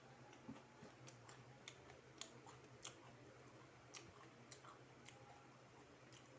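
Faint chewing of crispy flour-battered fried chicken: irregular small mouth clicks and crunches, about a dozen over several seconds.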